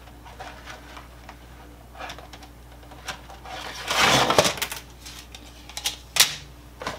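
Dry lasagna noodles clicking and rattling as they are pulled from their cardboard box and laid on a countertop. There is a louder rustling clatter about four seconds in and a single sharp click just after six seconds.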